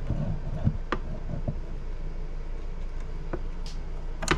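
A few sharp clicks of small parts being handled as a pin is started into the shotgun's release lever, the loudest near the end, over a steady low hum.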